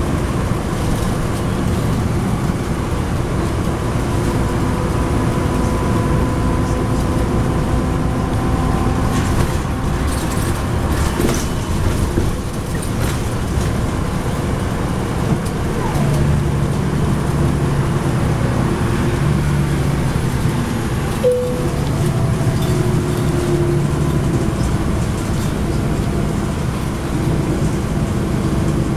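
Inside a 2010 NABI 40-SFW transit bus at highway speed: its Cummins ISL9 diesel engine running under steady cruise, with constant road and tyre noise.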